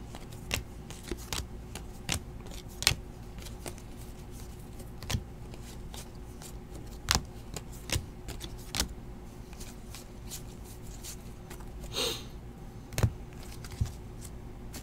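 Donruss basketball trading cards being flipped through and sorted by hand: irregular sharp clicks and snaps of card stock, with a short rustle about twelve seconds in, over a faint steady hum.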